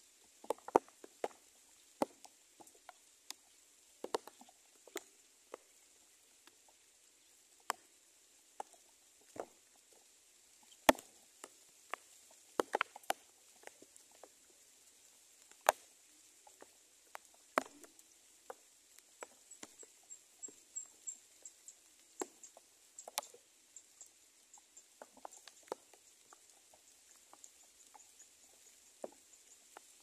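Scattered light taps and rustles at an irregular pace, a few of them louder, over a faint steady high tone. A brief run of faint high chirps comes about twenty seconds in.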